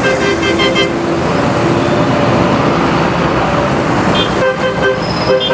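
Large farm tractors' diesel engines running as they drive past close by, with a horn tooted in quick short beeps during the first second and again twice near the end.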